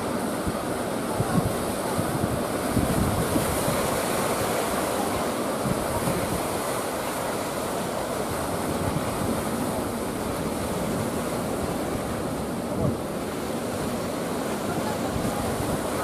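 Ocean surf breaking and washing in a steady roar, with wind buffeting the microphone.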